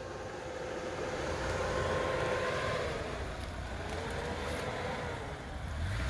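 Lada Niva 21214's four-cylinder engine pulling under load as the SUV crawls down into a stream crossing, the engine note sagging and picking up again twice.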